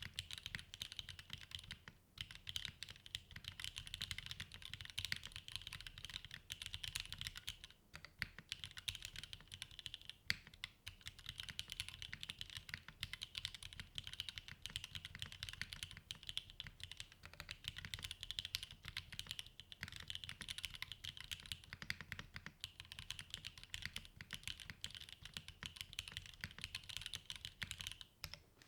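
Fast, continuous typing on a Frog mini custom mechanical keyboard with TTC Wild switches, an aluminium plate and GMK keycaps: a dense stream of key clacks with a few brief pauses, stopping just before the end.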